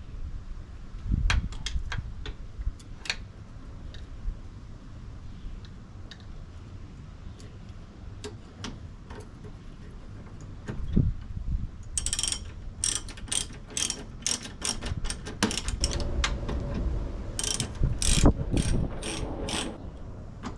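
Hand ratchet wrench clicking as bolts are run in, with a few scattered clicks and knocks at first and quick runs of clicks over the second half.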